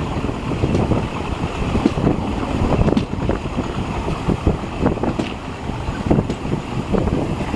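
Train running along the track: a steady low rumble with irregular knocks and clicks from the wheels on the rails, with some wind noise.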